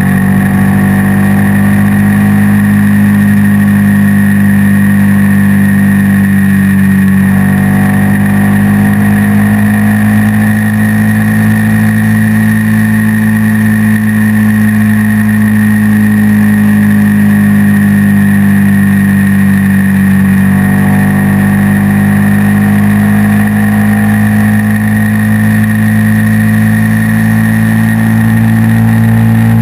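Suzuki VX800's V-twin engine running at road speed, its pitch drifting and then shifting abruptly about seven seconds in and again about twenty seconds in. A steady high-pitched tone runs over it, one the rider does not hear while riding.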